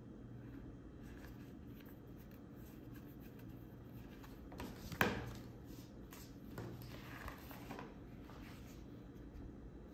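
Handling of a sticker-covered plastic phone case over a table, with one sharp knock about halfway through and a few faint rustles after it, over a low steady hum.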